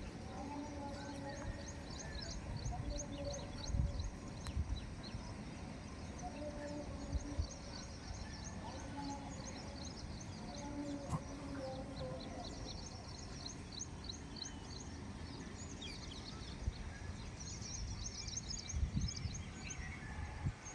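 Outdoor ambience of many small birds chirping in quick high-pitched series. Shorter, lower pitched calls repeat now and then, over an uneven low rumble.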